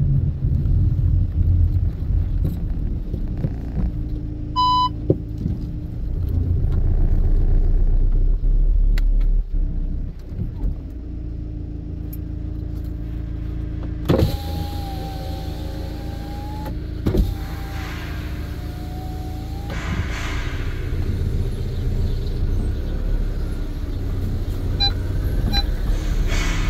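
VW Caddy van driving, heard from inside the cabin: a steady low engine and road rumble. A short beep sounds about five seconds in, and a wavering whine comes in twice for a few seconds each about halfway through.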